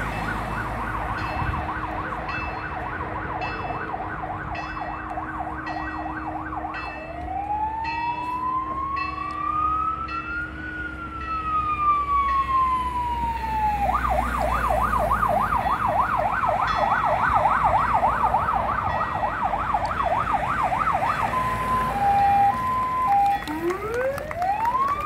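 Vehicle siren cycling through its modes: a fast yelp, then one slow wail rising and falling, the yelp again, a short two-tone hi-lo near the end and another wail starting. It signals the approach of the vehicle procession.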